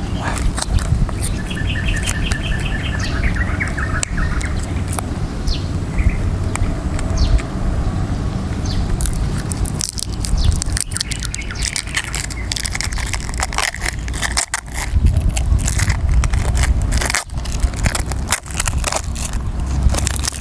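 A small bird chirps a rapid trill of repeated notes about two seconds in, over a steady low rumble. Through the second half, a dense run of sharp clicks and crunches.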